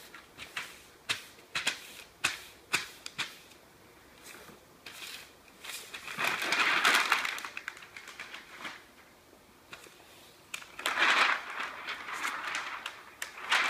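Newsprint rustling and crinkling under gloved hands as it is pressed and rubbed onto a solvent-wet polymer printing plate to blot up the ink, with scattered sharp crackles. Two longer, louder rustles come about halfway through and near the end, as the sheet is worked and peeled off the plate.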